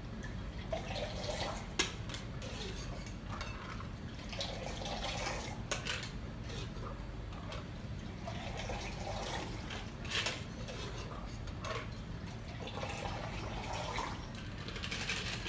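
A cocktail thrown between two metal shaker tins: a long stream of liquid pours from height into a tin, about four times and every few seconds, with sharp metal clinks of the tins between pours.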